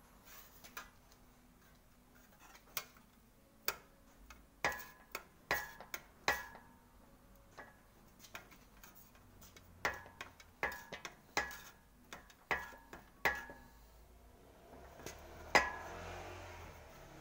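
A sheet-steel repair panel being worked through an English wheel: a string of sharp metallic ticks and pings, irregularly spaced, each ringing briefly. The loudest comes near the end and is followed by a short rough rubbing as the panel is shifted.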